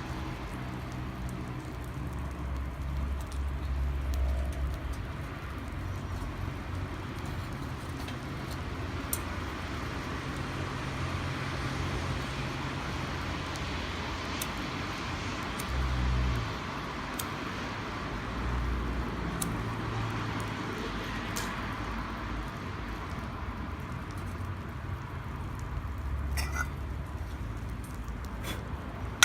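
Wood campfire crackling with occasional sharp pops, over a steady rumble of road traffic with a few vehicles swelling past.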